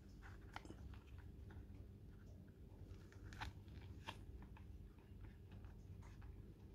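Faint scattered clicks and rustles of fingers handling a jewellery box and its suede insert, over a low steady hum.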